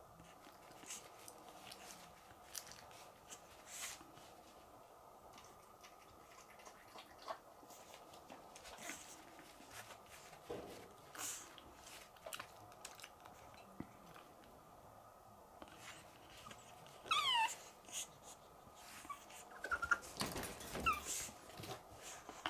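Pug puppy whining: one high, falling whine about three quarters of the way through, then a few short whimpers near the end. Scattered light clicks and knocks run throughout.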